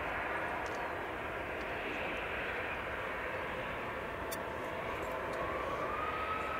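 Distant jet noise from the Antonov An-225's six turbofan engines as the aircraft rolls along the runway after landing: a steady rushing roar. A thin whine rises slightly about five seconds in and then holds.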